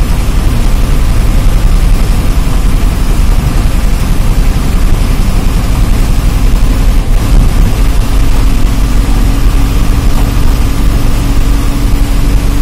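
Diesel engine of a TSRTC Palle Velugu bus running steadily on the move, heard from inside the front cabin as a loud, heavy rumble mixed with road noise. A steady hum joins about eight seconds in.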